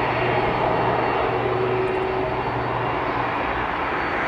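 Airbus A330-300's Rolls-Royce Trent 700 jet engines running at taxi power: a steady jet rush with a thin high whine over a low hum.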